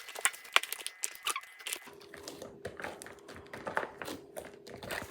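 Hands kneading and pulling sticky butter slime, making irregular small crackles and sticky pops.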